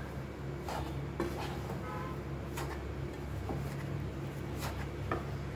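Spatula stirring a dry milk powder and powdered sugar mixture in a metal pan, with scattered clinks and knocks against the pan over a steady low hum.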